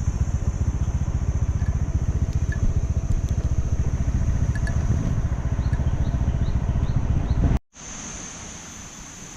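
Riding on a motorbike: a loud, buffeting rumble of engine and wind on the microphone. It cuts off suddenly near the end to a much quieter background with a steady high buzz.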